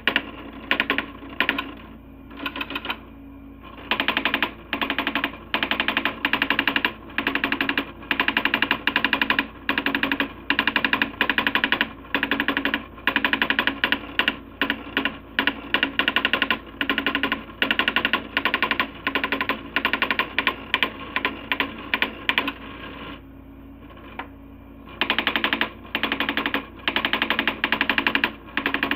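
Coleco Adam SmartWriter daisy wheel printer printing graphics: rapid clattering hammer strikes in short bursts separated by brief gaps. It goes quieter twice for about two seconds, near the start and about three-quarters of the way through.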